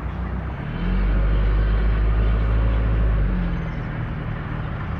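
A motor vehicle's engine rumble swells about a second in, holds for a couple of seconds and eases off after about three seconds, as a vehicle passes close by on the road.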